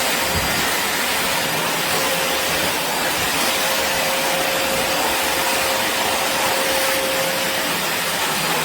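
Atrix VACBP10 backpack vacuum cleaner running steadily: a constant rushing motor hiss with a faint steady hum.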